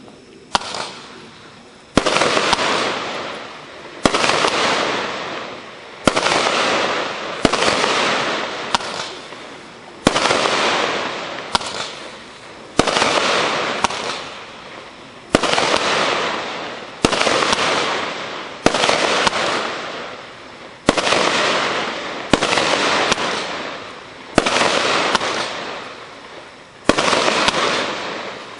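A 19-shot consumer firework cake with 25 and 31 mm tubes firing shot after shot, about one every one and a half seconds. Each sharp report trails off into a long fading crackle of gold stars before the next.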